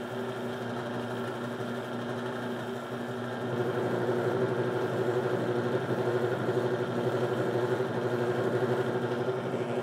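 Small electric motor of a bench-top leather edge burnisher running steadily. It grows a little louder about a third of the way in, as a leather edge is burnished against it.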